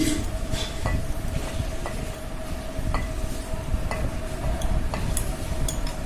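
Spoon clinking against a bowl about once a second as cooked noodles are scooped into beaten egg and chopped vegetables, over a steady low rumble and hum.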